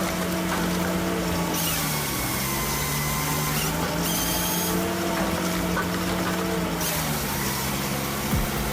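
Firewood processor's engine running steadily, its pitch sagging twice as it takes load from cutting or splitting.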